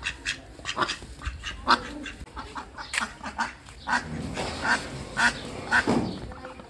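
Ducks quacking over and over in short calls, several a second, falling into a steadier series about twice a second in the second half.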